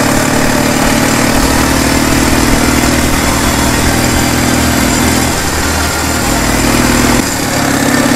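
Motorcycle engine running steadily under way, with wind and road noise. About five seconds in the engine note drops away, and it picks up again a couple of seconds later.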